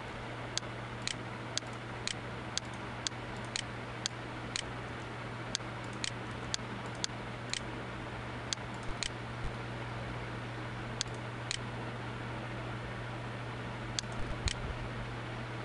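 Sharp, evenly spaced clicks from a computer mouse and keyboard as a form is filled in and submitted, mostly in pairs about half a second apart, over a steady low hum. The clicks come in a run through the first half, then two more, then a last pair near the end.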